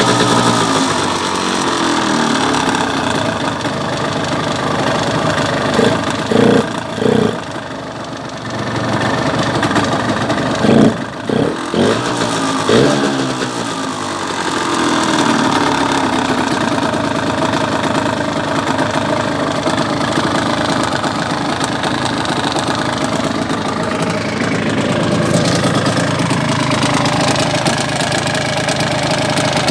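Yamaha DT125R single-cylinder two-stroke engine running, its revs falling at first, then several short throttle blips about six seconds in and again about eleven seconds in, before it settles back to a steady idle. It carries an engine noise that the owner suspects is piston slap or a failing crankshaft bearing.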